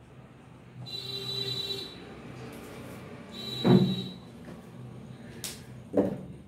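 Marker pen squeaking on a whiteboard in two short strokes as a heading is finished and underlined. A loud knock comes just before four seconds in, and a thump follows near the end.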